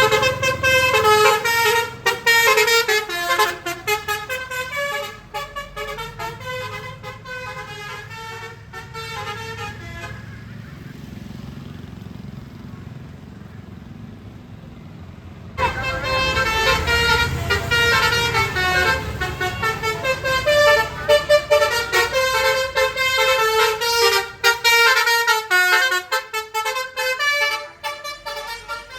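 Bus 'telolet' multi-tone horn playing quick runs of melodic notes. It stops for about five seconds near the middle, leaving a low rumble of road traffic, then plays its runs again.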